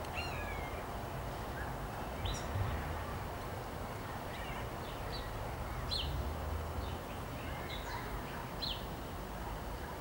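Small songbirds chirping: short, sharp, downward-sweeping calls scattered about once a second, over a steady low background rumble.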